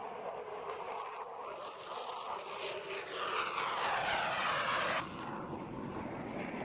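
Aircraft engine noise of a plane passing close by, swelling, with sweeping tones that shift in pitch. It cuts off abruptly about five seconds in, leaving a quieter steady rumble.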